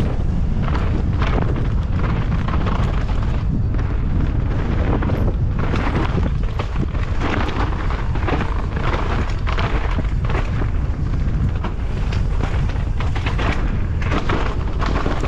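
Wind buffeting an action camera's microphone as a downhill mountain bike runs fast over rough trail: a heavy steady rumble with frequent knocks and rattles from the bike and tyres hitting roots and rocks.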